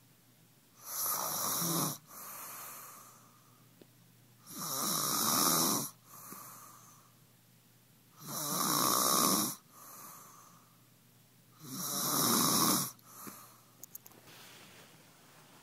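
Loud snoring: four long snores about three and a half seconds apart, each followed by a softer breath out.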